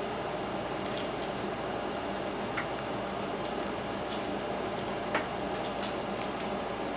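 Steamed crabs being eaten close to the microphone: scattered short, wet clicks and snaps of shell being picked apart and of mouth smacking, the sharpest one a little before the end, over a steady low background hum.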